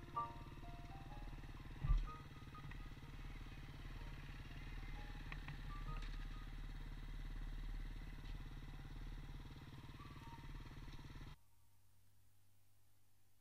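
Dirt-bike engines idling steadily, with faint music over them and a single thump about two seconds in. The sound cuts off abruptly near the end.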